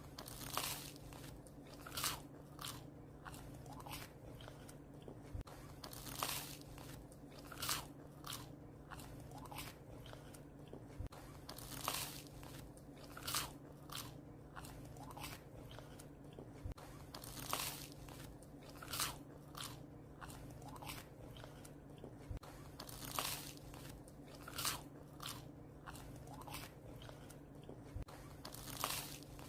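A dog chewing and crunching bread, with sharp crisp crunches coming every second or so, over a steady low hum.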